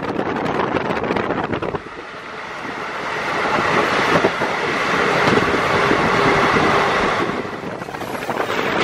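Wind rushing past the open window of a moving Indian express train, with the coach's running noise. The sound changes abruptly about two seconds in, swells, then eases near the end.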